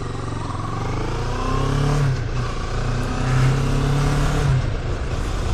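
CFMOTO 650NK motorcycle's parallel-twin engine on the move, accelerating with rising revs. The pitch drops about two seconds in and again near the end as the rider changes gear.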